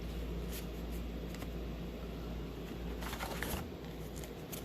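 Baseball trading cards being handled and slid across one another: a few soft flicks and scrapes, with a denser run of them about three seconds in, over a steady low hum.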